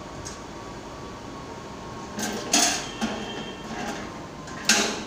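Metal clacks from the manual coin mechanism at the top of a napkin vending machine as a coin is put in and the mechanism is worked: two loud clacks about two seconds apart with lighter clicks between them, over a steady background hum.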